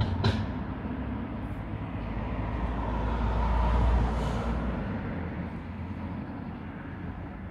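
A passing road vehicle, growing louder to about four seconds in and then fading, over a steady low rumble, with a brief sharp knock right at the start.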